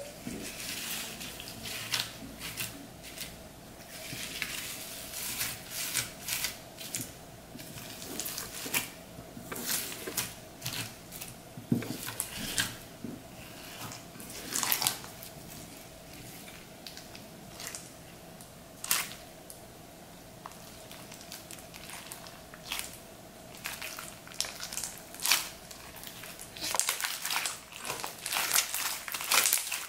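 Clear slime mixed with foam beads being squeezed and kneaded by hand, giving irregular crunchy crackles and pops, denser near the end.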